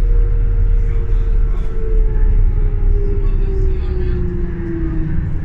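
Inside a 2006 New Flyer D40LFR diesel transit bus on the move: a steady low rumble of engine and road, with a whine that slowly falls in pitch.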